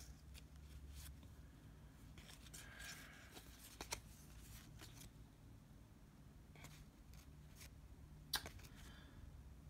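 Faint handling of trading cards and card-pack wrappers: scattered soft clicks and rustles, a slightly sharper click about 4 s in and another near 8.5 s, over a low steady hum.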